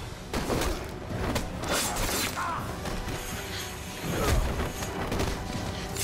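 Hand-to-hand fight sound effects: a quick series of hits, swishes and thuds, the heaviest about four seconds in, with a dramatic music score underneath.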